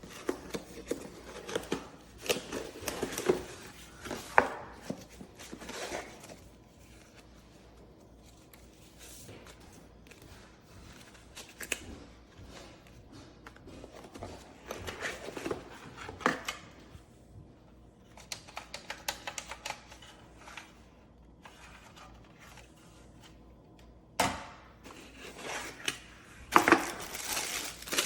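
Irregular handling noises: sharp clicks and knocks mixed with rustling, coming in bursts with quieter gaps between them.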